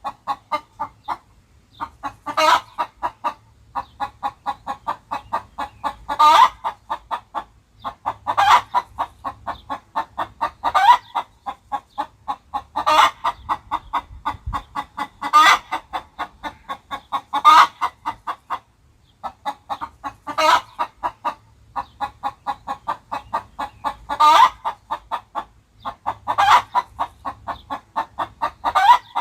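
Chicken clucking sound effect: a rapid run of short clucks, several a second, broken every couple of seconds by a louder, drawn-out squawk.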